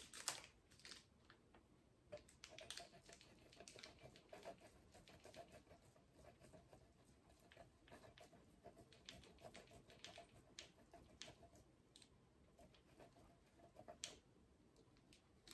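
Faint, irregular scraping strokes of a block of Parmesan being grated on a long handheld rasp grater.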